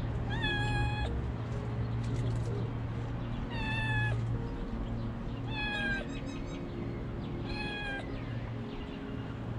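A young stray kitten, sick with a cold, meowing four times, each call under a second long and about two seconds apart.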